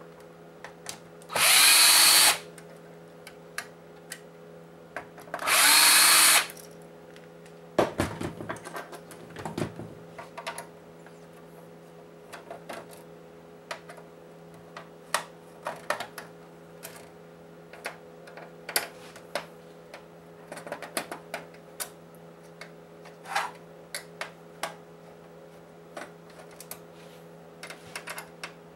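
Cordless drill driver spinning out security Torx screws from a steel shield in two runs of about a second each, a few seconds apart. Then small scattered clicks and taps of a hand screwdriver and loose screws on the metal plate.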